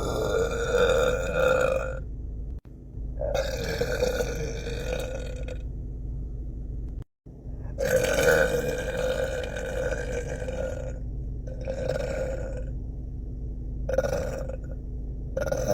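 A man belching repeatedly: three long burps of two to three seconds each, then three shorter ones near the end.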